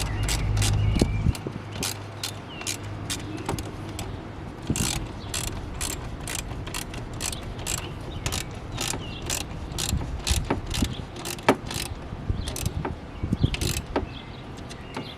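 Ratchet wrench clicking in short strokes, roughly two or three clicks a second, while a hose clamp on the air intake is tightened. A low rumble sits under the first second or so.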